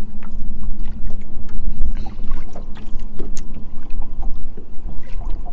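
Strong wind buffeting the microphone on a small fishing boat, with water slapping the hull, a steady low hum, and a few small clicks and knocks.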